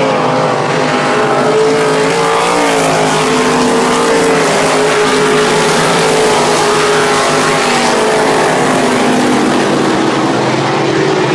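A field of RaceSaver sprint cars racing on a dirt oval: several V8 engines running at speed together in a steady, loud drone whose pitch wavers slightly up and down.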